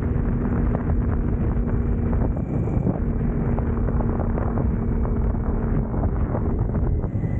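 Wind rushing over the microphone on a moving BMW K1600 GTL touring motorcycle, with the steady note of its inline-six engine underneath.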